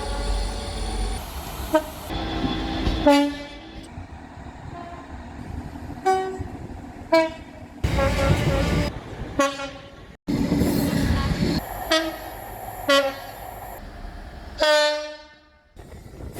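Train two-tone horns sounding a series of short blasts, alternating high and low notes, over the low rumble of trains running past. The sound changes abruptly between separate recordings.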